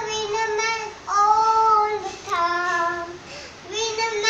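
A three-year-old girl singing on her own in a high child's voice, holding long notes, with two short pauses for breath between phrases.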